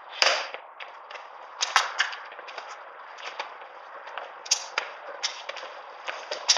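Balls slapping into bare hands as they are caught while juggling: a string of sharp, irregular smacks, the loudest about a quarter second in. A steady hiss of wind on the microphone runs underneath.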